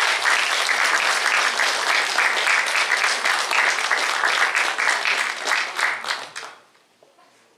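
Audience applause: dense clapping from many hands that tapers off and dies away about six and a half seconds in.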